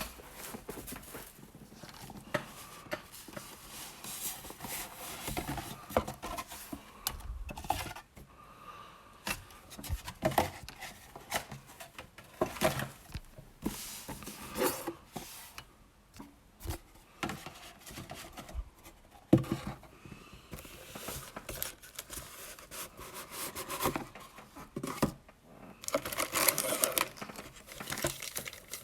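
Plastic wrapping being torn and crinkled and a cardboard trading-card box being handled, with scattered taps, scrapes and rustles and a louder stretch of crinkling near the end.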